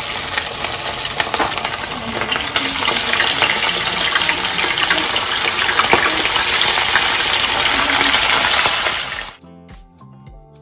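Flour-dredged smelt sizzling and crackling in hot oil in a frying pan, a dense hiss with sharp pops that gets louder as more fish go in. It cuts off suddenly about nine seconds in, giving way to background music.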